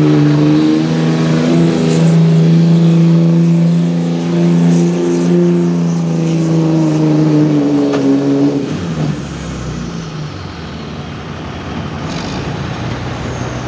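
Dodge Ram 3500 dually's turbo-diesel engine running hard and steady under load while it drags a weight-transfer sled. About eight and a half seconds in it drops off, leaving a lower, quieter rumble.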